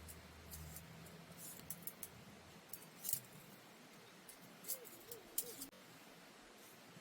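Faint, scattered clicks and small handling noises, with a brief wavering squeak about five seconds in.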